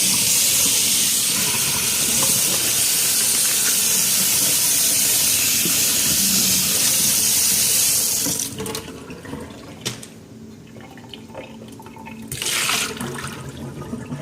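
Hot water running from a kitchen tap in a steady stream, shut off about eight seconds in. A few clicks and knocks follow, then a short second burst from the tap near the end.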